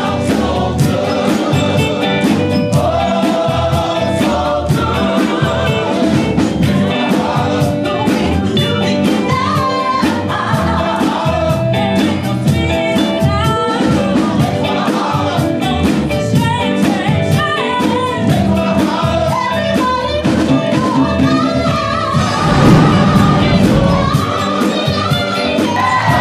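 Vocal group singing soul-style harmonies over a band with a steady drum beat.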